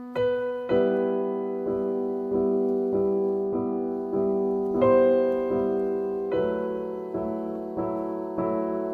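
Soft piano music: a slow, gentle melody of struck notes, each fading away, over a steady repeated accompaniment, with a change of chord about halfway through.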